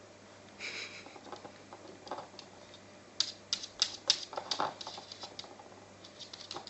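Maltese dog playing with horse chestnuts on a laminate floor: light taps and scuffs, then a quick run of sharp clicks about three to five seconds in.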